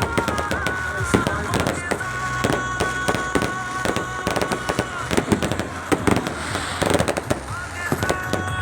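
Fireworks display: a rapid, continuous string of bangs and crackles from aerial shells.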